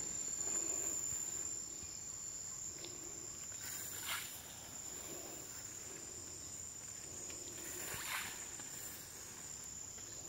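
Quiet outdoor ambience with a steady high-pitched insect trill throughout, and two soft brief noises about four and eight seconds in.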